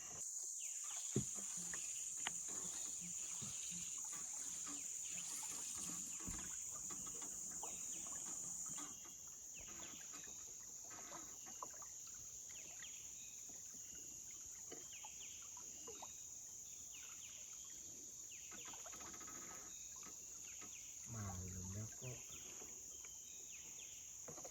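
Tropical rainforest ambience: a steady high-pitched insect drone with scattered short bird chirps. The drone drops a little about nine seconds in.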